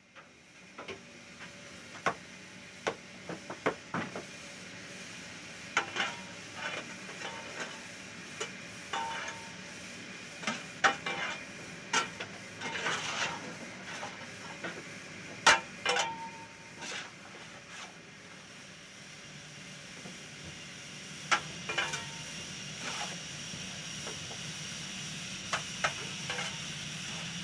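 Steam locomotive standing in steam: a steady hiss that slowly grows louder in the second half, with irregular sharp metallic clanks and knocks throughout.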